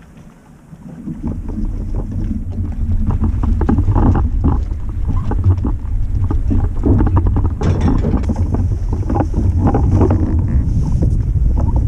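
Wind buffeting the microphone, building about a second in and staying loud, over small splashes and knocks of water around a kayak paddling in to land.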